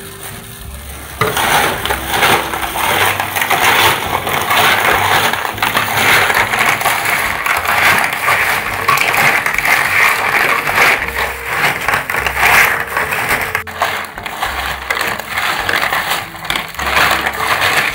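Raw cockles in their shells clattering and grinding against each other and an aluminium bowl as a plastic-bag-gloved hand tosses them with seasoning, a dense, continuous rattle that starts about a second in.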